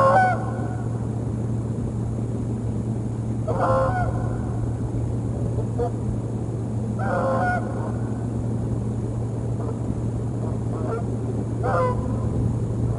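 Geese honking: short honks come every three to four seconds, with a few fainter ones between. A steady low hum runs underneath.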